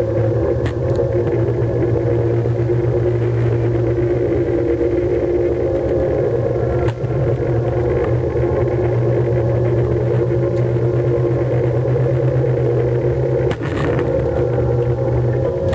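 An engine running steadily at a constant speed, a loud low drone, broken by two brief clicks about seven seconds in and near the end.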